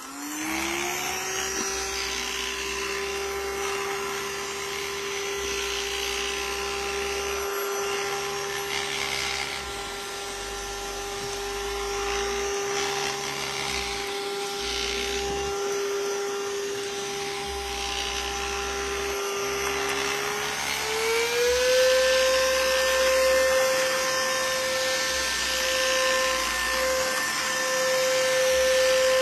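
SWDK handheld cordless UV mattress vacuum cleaner switching on and running with a steady motor whine as it is worked over a mattress, with a low rumble that comes and goes as it moves. About 20 seconds in the whine steps up in pitch as it is switched to a higher speed.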